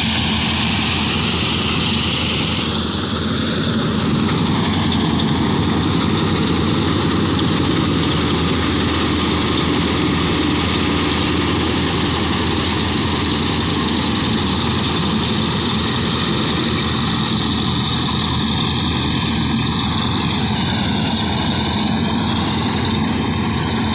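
New Holland combine harvester running while cutting rice: the engine and threshing machinery make a loud, steady drone that does not let up.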